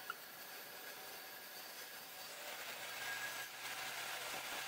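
Benchtop table saw running faintly while a wooden board is ripped lengthwise into square bars: a steady whir-like hiss that grows a little louder in the second half.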